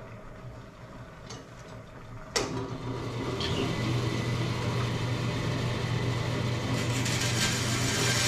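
Bandsaw switched on with a click a little over two seconds in, its motor coming up to speed and running with a steady hum. A higher hiss builds near the end.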